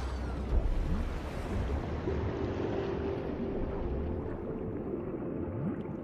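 Underwater ambience: a steady low rumble with gurgling and a few faint gliding tones, and a single thump about half a second in.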